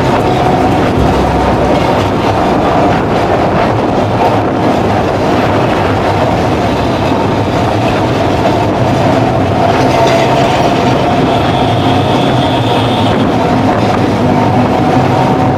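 Kolkata electric tram running along its track, heard from on board: steady rumble and clatter of the wheels on the rails with a steady hum. A thin high squeal rises from the wheels a little past the middle for a couple of seconds.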